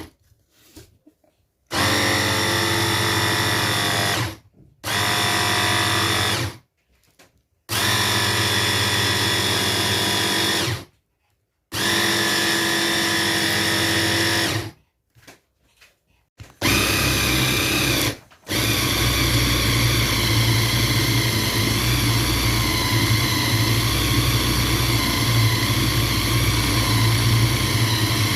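Electric blender pulsed in five short runs of two to three seconds each, then running steadily for about the last ten seconds. It is chopping raw chicken, boiled potato and breadcrumbs into a thick paste.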